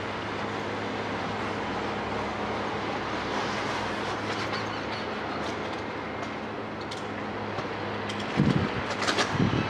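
Terex hydraulic excavator's diesel engine running steadily as its sorting grab works the roof beams. In the last second and a half come several loud thumps and cracks of timber and debris being broken and dropped.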